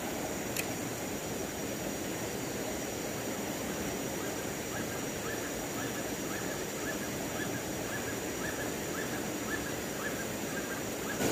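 Steady rushing of a river flowing over rocks. A single sharp click comes about half a second in, and a faint run of short, evenly spaced high ticks runs through the second half.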